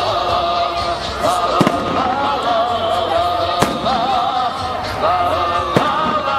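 Fireworks salute bursting in a few sharp bangs, the strongest about one and a half, three and a half and six seconds in. Music with a sustained, wavering melody plays throughout.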